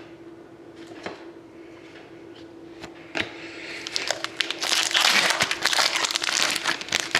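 Plastic wrapper of a trading card pack crinkling, loud and dense for about three seconds starting some four seconds in, after a few light clicks of cards being handled.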